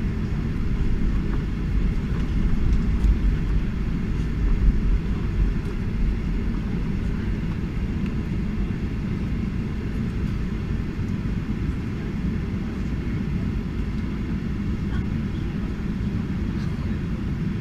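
Cabin noise inside a Boeing 737-800 taxiing: a steady low rumble from its CFM56-7B engines and the wheels rolling on the taxiway, heaviest in the first few seconds.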